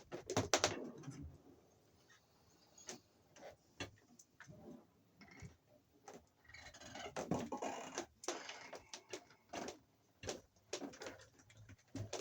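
Scattered clicks, taps and rustles of electrical wires and connectors being handled and pushed around a junction box, busiest about a second in and again in the second half.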